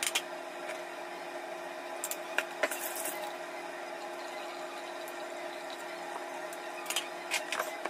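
Small clicks and snaps of a cooked langoustine's shell being handled and worked with a kitchen knife, a few about two seconds in and a few more near the end, over a steady low kitchen hum.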